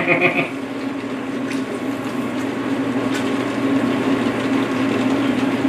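Large pot of curry simmering on the stove: a steady hiss over a low hum, slowly getting a little louder, with a few faint ticks.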